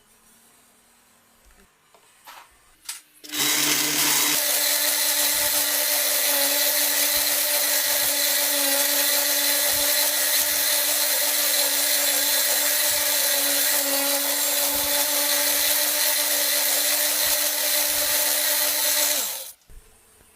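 A few light clicks, then an electric wood sander switches on and runs steadily at one speed for about sixteen seconds with a steady hum over a hiss. It stops abruptly near the end.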